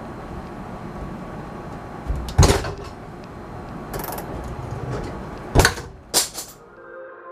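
A few sharp knocks or clunks, the loudest about two and a half and five and a half seconds in, over a steady hiss.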